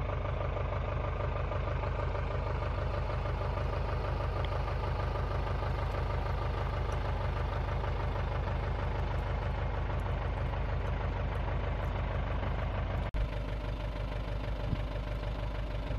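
Motorhome engine idling steadily with an even low pulse. There is a brief dropout about 13 seconds in, after which it goes on much the same.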